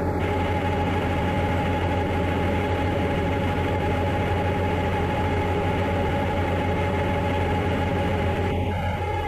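Heavy diesel farm machinery running steadily, with a deep hum and a steady whine over it. The sound shifts briefly near the end.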